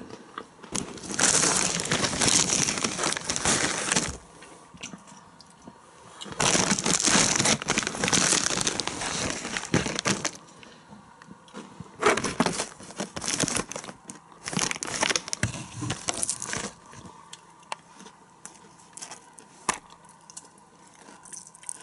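Heimatgut popcorn bag with a foil lining crinkling and rustling as it is handled, in two long spells in the first half. Shorter crackles and rustles follow, and it goes quieter in the last few seconds.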